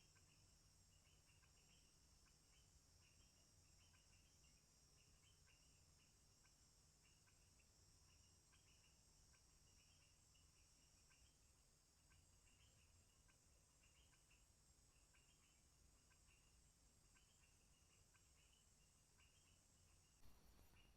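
Faint forest insect chorus: a steady high-pitched buzz with short cricket-like chirps repeating about once a second, over a low hum. A short noisy burst near the end.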